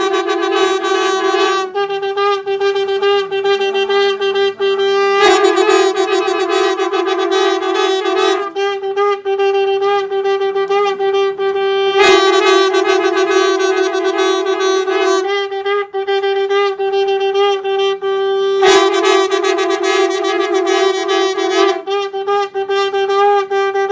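Valampuri conch shells blown in one long unbroken note. The sound swells to a brighter, fuller blast about every three to four seconds, then falls back to a plainer tone.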